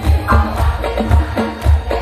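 Loud live sholawat music over a PA system, driven by a heavy bass drum beat about twice a second with other percussion and instruments.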